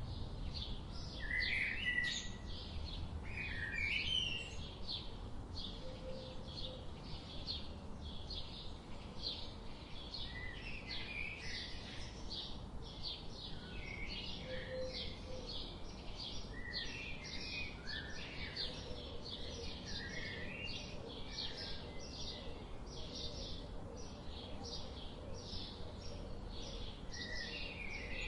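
Forest birds singing: a fast, steady series of short high chirps, several a second, with louder warbling phrases from other birds breaking in now and then. A low rumble runs underneath.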